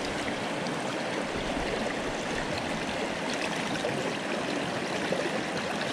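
Steady rush of a river running fast over rocks.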